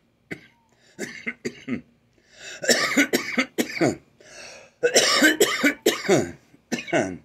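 A man coughing: a few short coughs in the first two seconds, then two long coughing bouts, a reaction to inhaling cannabis smoke from a pipe.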